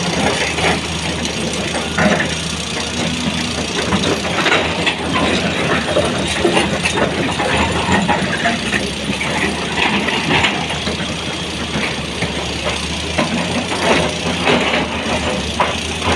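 Sany 240 excavator's diesel engine running steadily, with frequent sharp knocks and clatter of stones.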